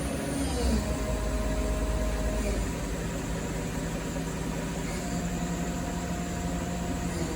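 Milltronics ML22 CNC lathe's spindle running steadily in second gear at about 1,000 RPM: a low hum with several steady whining tones, a couple of which shift pitch partway through.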